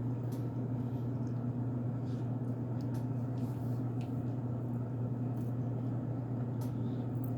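Mouth chewing dry cornstarch, heard as faint, scattered crunchy clicks over a steady low electrical hum.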